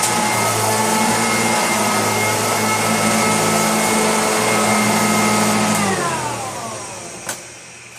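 Sanitaire SC887 upright vacuum cleaner running steadily with a motor whine, then switched off about six seconds in, the motor winding down with a falling whine. A single sharp click comes near the end.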